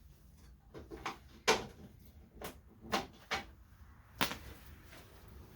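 Sockets and hand tools being handled and fitted: a series of about seven separate clinks and knocks, spaced unevenly.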